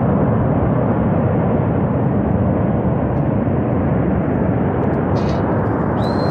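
Loud, steady rushing noise of a flash flood, a torrent of water and debris surging down the valley after a dam failure.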